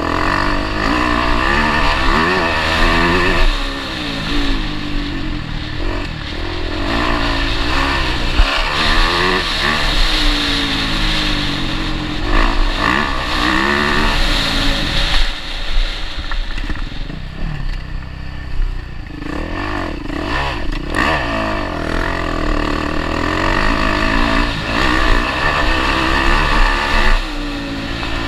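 Motocross bike engine heard close from on board while riding, its revs rising and dropping back again and again as the throttle is opened and closed over rough ground.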